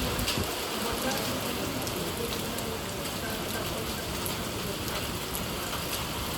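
Steady rain falling, an even hiss with a few faint single drops ticking now and then.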